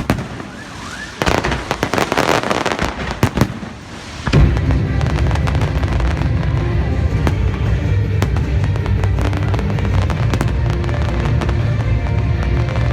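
Beehive rockets and firecrackers going off at close range. Scattered rapid cracking builds, then about four seconds in it turns into a continuous dense barrage: a loud rumble packed with sharp bangs.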